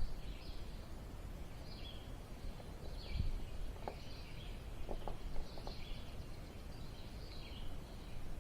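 Birds chirping in the background, short high calls repeating about once a second, with a few faint clicks in the middle.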